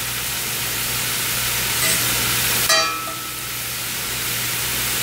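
Steady sizzling from two pans: butter melting in a cast-iron skillet and shredded cabbage frying in the pan behind it. A little past halfway comes a brief scrape of a metal fork on the skillet.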